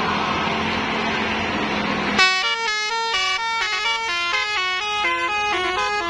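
An Indonesian bus 'telolet' horn, a set of air-driven trumpets, starts about two seconds in and plays a quick stepping melody, several notes sounding together. Before it there is steady broad noise.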